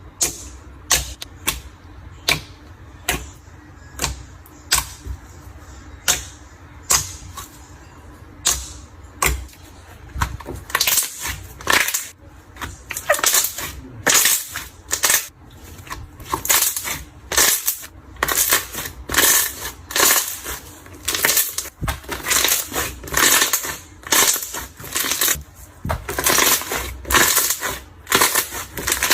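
Clear slime being pressed and squeezed by hand, giving sharp clicking pops: about one every half second or so at first, then coming faster and crowding together from about ten seconds in.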